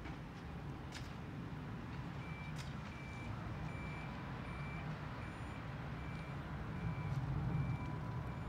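A vehicle's reversing alarm beeping at an even pace, about one and a half beeps a second, starting about two seconds in, over a steady low rumble.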